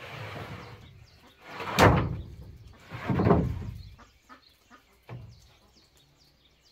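Wooden floor planks being slid and knocked against the joists and each other: a scrape at the start, a loud knock just under two seconds in, another scraping knock about a second later, and a light knock near the five-second mark.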